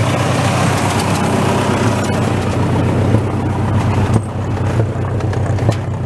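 Massey Ferguson tractor's engine running steadily at a constant speed, loud and close to the microphone.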